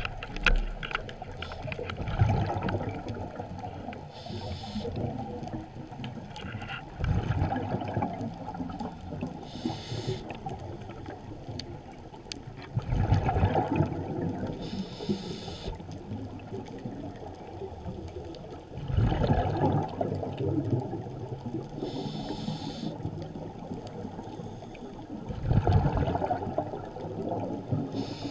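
Scuba diver breathing through a regulator underwater: a short hiss on each inhale, then a rumble of exhaled bubbles, about every six seconds. Between breaths there is a faint crackle.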